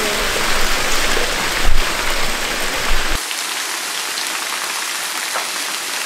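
Waterfall pouring and splashing: a steady rushing hiss of falling water. There is a dull thump about a second and a half in, and the deep part of the sound drops away suddenly at about three seconds.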